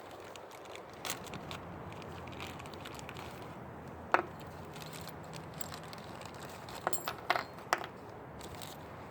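A few sharp clicks and clinks of small hard objects being handled: a single loud click about four seconds in, then a quick run of three or four near the end.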